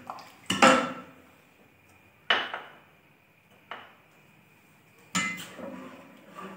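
Utensils knocking and clinking against a metal cooking pot, about six separate strikes with short ringing tails, while dry fruits are added to the simmering milk; the loudest knocks come about half a second in and just after two seconds.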